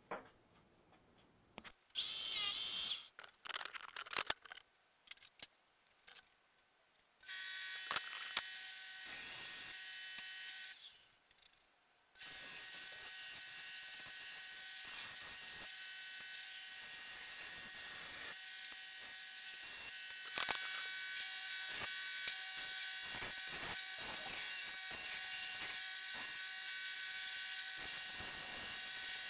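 Electric power saw running in stretches as it cuts pine board: a short loud burst about two seconds in, then a steady motor sound carrying several high tones from about seven seconds, breaking off briefly near eleven seconds and running on with frequent clicks.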